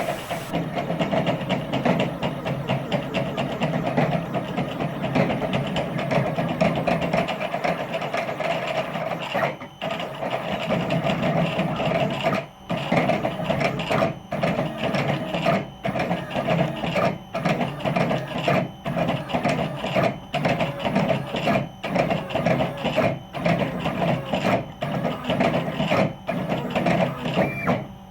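Stepper motors of a DIY Sidewinder CNC router, 400 oz-in bipolar steppers driven at 4 amps by THB6064AH drivers, whining and rattling the machine as it makes rapid back-and-forth moves. From about a third of the way in, the sound breaks off briefly about every second and a half between moves.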